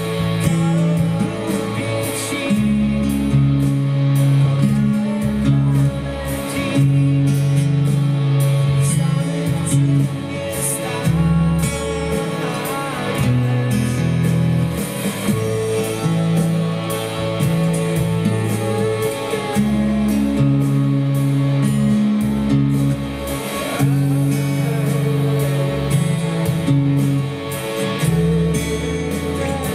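Acoustic guitar strummed in a steady rhythm, playing along with a recorded rock song that carries a bass line and a singing voice.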